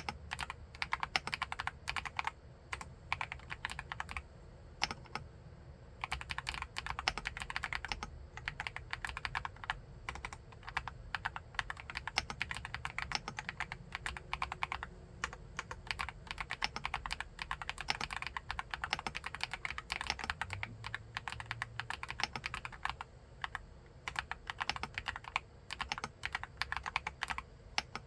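Typing on an Akko SPR 75 mechanical keyboard with MMD Princess tactile switches: a fast, continuous run of keystrokes with a brief pause about four seconds in.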